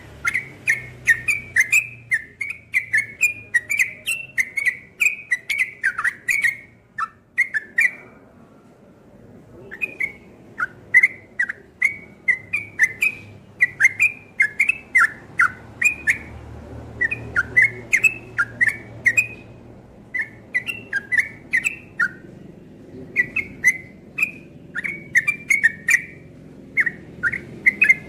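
Caged yellow-vented bulbul (trucuk) singing in the rapid 'ropel' style: a long run of short whistled notes that slide up and down, several a second, with a break of about two seconds about a third of the way in.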